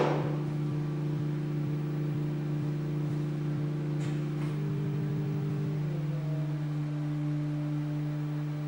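A steady low drone of held tones. A higher tone joins about four and a half seconds in and another about six seconds in, so the drone thickens without any beat or break.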